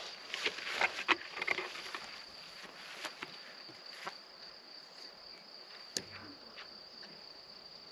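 Rustling and clicking of electric-fence polywire being handled and unreeled from its spool at a wooden post, loudest in the first two seconds, with one sharp click about six seconds in. A steady high insect chirring from the meadow runs underneath.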